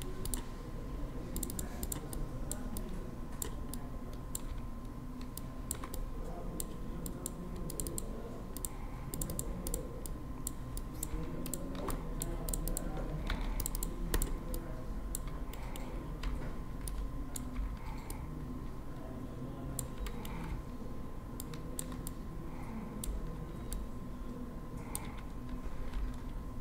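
Irregular, scattered clicks of a computer keyboard and mouse during desktop work, over a faint steady hum.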